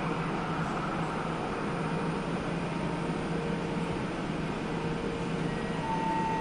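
Steady hum of an electric freight locomotive running slowly past on a far track, hauling open wagons, with a steady machinery drone under it. A higher steady tone joins near the end.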